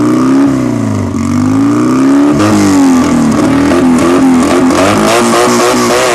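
Fiat 500 engine being revved again and again, its pitch climbing and dropping about once a second, then wavering up and down in quicker, shorter blips from about halfway through.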